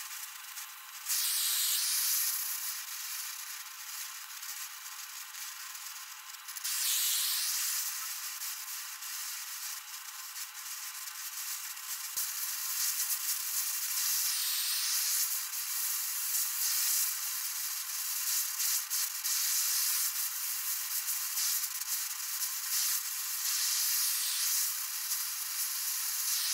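Oxyacetylene torch flame hissing steadily while bronze brazing rod is melted into grooves in a steel plate. The hiss swells louder about a second in, again a few seconds later, and stays louder through much of the second half.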